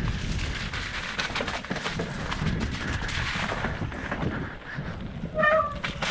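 Mountain bike descending a dirt singletrack onto gravel: wind buffeting the mounted camera, tyres rolling over dirt and stones, and the bike knocking and rattling over bumps. Near the end a brief high squeal rises above the riding noise.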